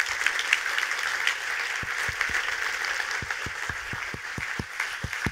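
Audience applauding steadily at the end of a lecture, with a run of soft low thumps from about two seconds in.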